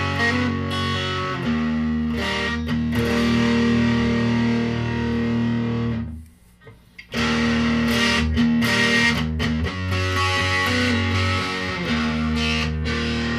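Electric guitar played through a heavily distorted breadboard prototype distortion pedal that uses molecular-junction clipping, with sustained, saturated chords. The sound cuts out for about a second midway as a knob on the pedal is switched, then returns just as distorted.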